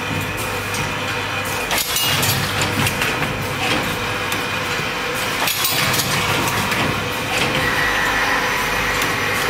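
Automatic paint roller cap assembly machine running: steady mechanical running noise from its rotary table and stations, with a few sharp knocks as the stations cycle.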